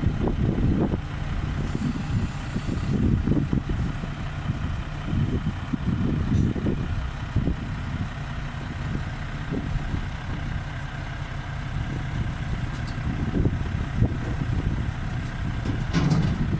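Low, steady rumble of a running engine, swelling and easing irregularly.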